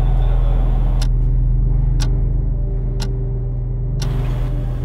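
A light-rail train running with a steady low hum, and over it four sharp clock-like ticks, evenly spaced one second apart.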